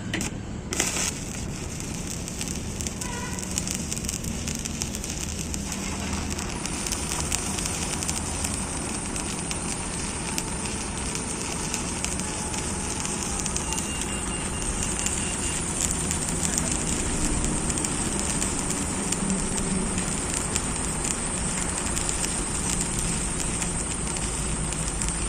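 Electric arc welding on a mild-steel plate: the arc crackles and sizzles continuously, growing denser and brighter about six seconds in.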